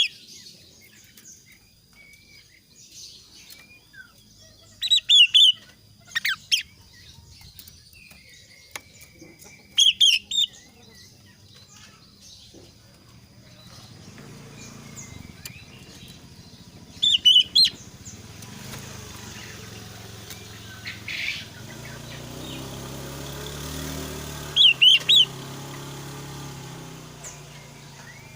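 Male kaso-kaso bird calling: loud short bursts of two or three bright, high notes repeated about every five seconds, with fainter chirps between them. A low rumble builds in the background over the second half.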